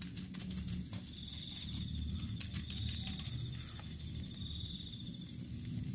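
Wood fire crackling with scattered sharp pops under a fish grilling on the embers, over a low rumble. An insect trills high and buzzy, in three short spells.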